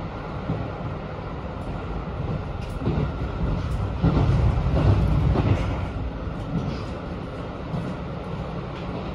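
JR Hokkaido 721 series electric train running, heard from inside the passenger car: a steady rumble of wheels on rails with scattered clicks, growing louder for about two seconds around four seconds in.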